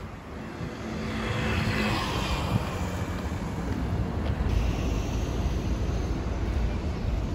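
Road traffic noise: a vehicle passing swells up about a second in and fades, leaving a steady low rumble of traffic.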